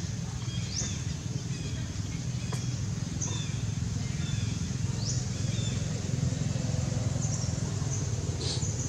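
Steady low rumble of vehicle engine noise, with several short, high rising chirps over it.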